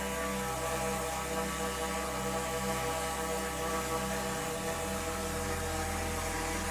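DJI Mavic 3 drone's propellers running steadily, a hum of several even, unchanging tones. The lowest part of the hum shifts about four and a half seconds in.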